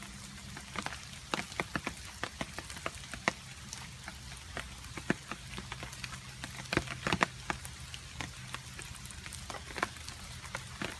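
Water drops and rain dripping onto a surface: irregular sharp plinks and ticks, several a second, over a faint hiss of rain, with a brief flurry of drips about seven seconds in.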